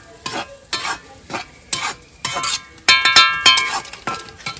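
Metal spoon stirring and scraping a metal pan in short repeated strokes, over the sizzle of shallots, green chillies, ginger and curry leaves sautéing in coconut oil.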